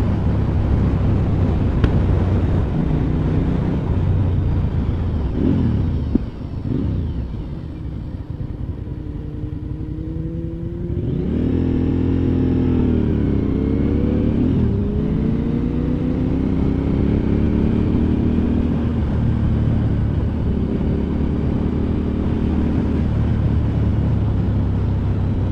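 Motorcycle engine running on the move with wind rumble. The sound drops away for a few seconds as the bike slows, then picks up again, its pitch rising and falling as the revs change.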